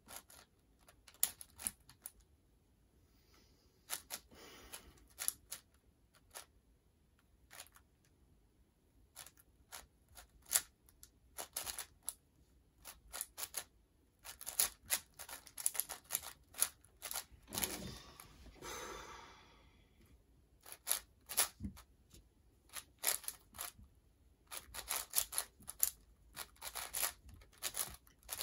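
Plastic twisty puzzles being turned quickly by hand during speedsolving: a fast, irregular run of sharp plastic clicks and clacks, with a longer rasping stretch about two-thirds through.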